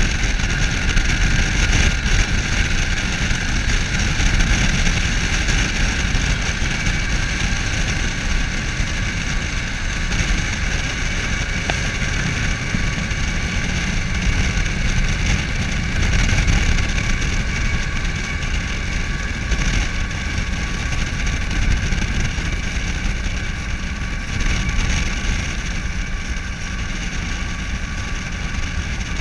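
Steady road and wind rumble from a vehicle pacing an empty coal train, the train's hopper cars rolling alongside. The noise holds even, with no sudden sounds and no change as the mid-train locomotives go by.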